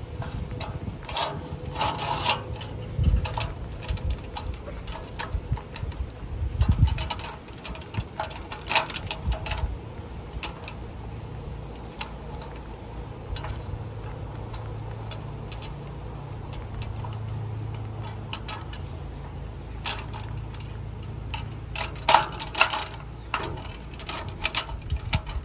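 Scattered metal clinks and knocks as a steel mounting bracket is handled, fitted and bolted onto the aluminium square tube of a Mount-N-Lock Heavy Hauler RV bumper. A steady low hum runs through the middle stretch.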